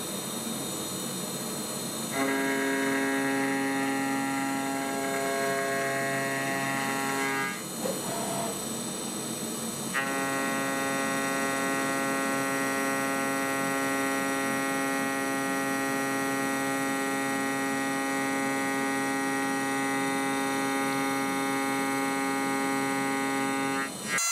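Home-built CNC milling machine cutting a chamfer along a steel workpiece, its spindle at 8000 rpm: a steady, pitched milling hum. The hum drops out for a couple of seconds about a third of the way in, then returns unchanged.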